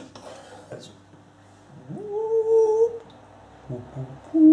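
A person's voice holding two long sung notes: the first slides up into a level note about two seconds in, and the second, lower one starts near the end.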